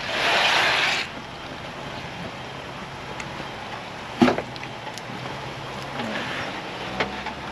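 Ford Bronco crawling slowly down a rock ledge, its engine running low and steady. There is a brief hiss in the first second and a single sharp knock about four seconds in as the tyres come down over the rocks.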